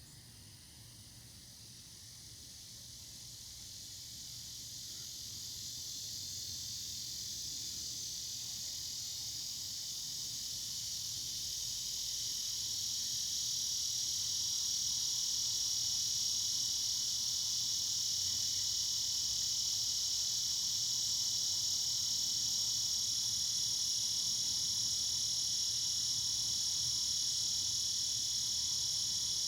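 Chorus of cicadas: a steady high-pitched buzz that swells over the first dozen or so seconds, then holds level.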